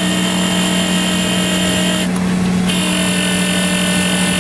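Hydraulic pump and orbital hydraulic motor running at full system pressure, about 1,000, in a test for a suspected leaking motor seal. A steady hum with a high whine over it; the whine cuts out for about half a second around two seconds in.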